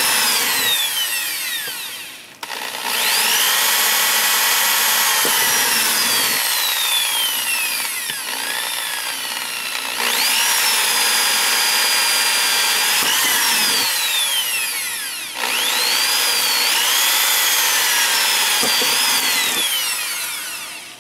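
Handheld electric drill boring holes through a clear acrylic sheet and the plastic wall beneath it. It runs in several bursts, the motor whine rising as it spins up and sliding down as it slows between holes, then stops near the end.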